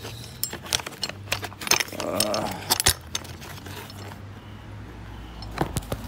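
Clicks, knocks and metallic jingling from small metal and plastic parts and the phone camera being handled, densest in the first three seconds, with a brief low vocal sound about two seconds in. A low steady hum runs underneath.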